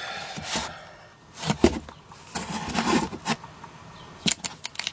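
Handling noise of hands among parts in a cardboard box: rustling and scraping, with a few light clicks and knocks, a quick cluster of them near the end.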